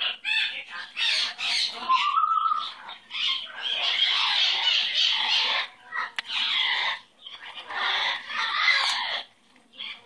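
Red-headed conure giving a string of harsh, raspy squawks and chattering calls, each about a second long with short pauses, and a short rising whistle about two seconds in.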